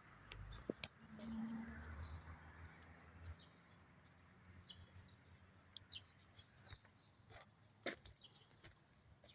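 Faint outdoor background with a few short, high bird chirps and some scattered sharp clicks; the loudest click comes about eight seconds in.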